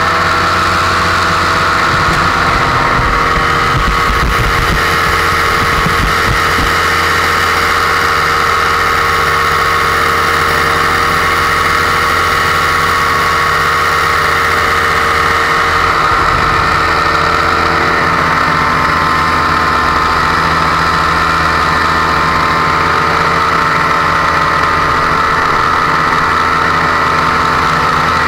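Blackhawk paramotor's engine and propeller running steadily at cruise in flight, loud and even, with low wind buffeting on the microphone in the first few seconds.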